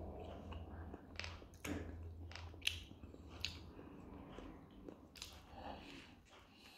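A man chewing a mouthful of pljeskavica (grilled minced-meat patty) in a bread bun, with irregular wet mouth clicks and soft crunches of the crust, then taking another bite near the end.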